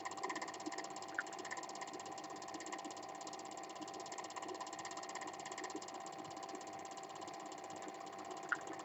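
Cine film projector running: a steady mechanical whirr with a rapid, even clatter of the film transport, and a sharp click about a second in and another near the end.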